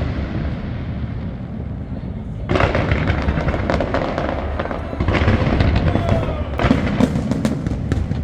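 Fireworks display going off: a continuous deep rumble of booms, with dense bursts of crackling starting about two and a half seconds in and again around five and six and a half seconds in.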